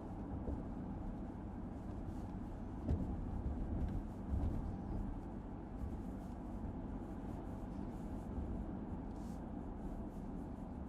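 2018 Dodge Durango R/T with its 5.7-litre HEMI V8, on the move: a steady low engine drone and road rumble with a few small knocks, the engine speed holding level.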